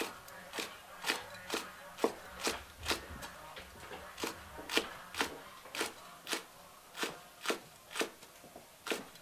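Chinese cleaver slicing green chili peppers into rings on a thick round wooden chopping block, each stroke ending in a sharp knock on the wood, about two a second in a steady rhythm.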